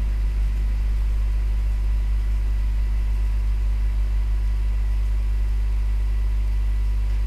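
Steady low electrical hum with a few faint, even tones above it and light hiss: the background noise of the voice-over recording, with no speech.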